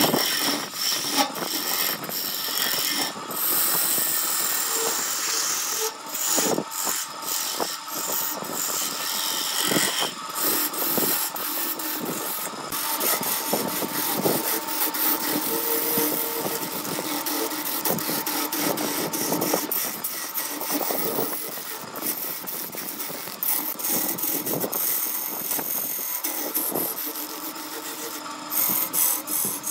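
Wood lathe spinning a vase-shaped wooden blank while a hand-held turning tool cuts and scrapes it: a continuous rough scraping hiss, broken by several brief gaps as the tool is eased off.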